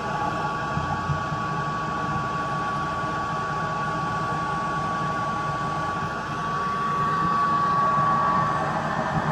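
Cruise N Comfort air conditioner's indoor blower running steadily on its second speed: a smooth rush of air with a thin steady hum through it. It grows a little louder about seven seconds in.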